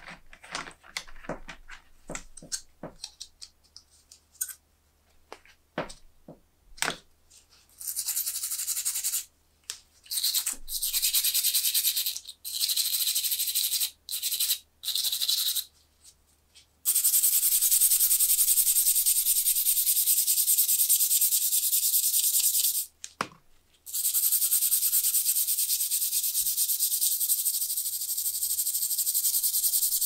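Small wire brush scrubbing a rusty pocket-knife blade in rapid back-and-forth strokes, heard as spells of scratchy hiss with short pauses between them, to take off the rust stains left after a soak in rust remover. The first several seconds hold only scattered light clicks and taps.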